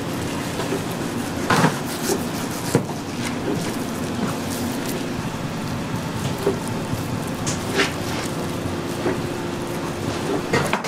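Kitchen work noise: a steady hum and hiss with occasional sharp knocks and clatter.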